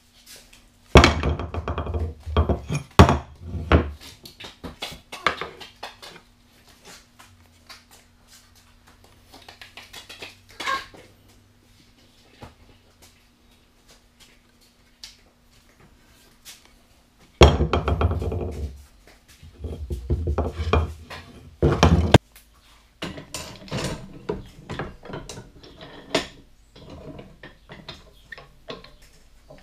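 Clanks and knocks of a rusty steel tomahawk head and metal tools being handled on a wooden workbench and set into a bench vise. The sound comes in two loud clusters of clattering, about a second in and again just past halfway, with scattered lighter clicks between.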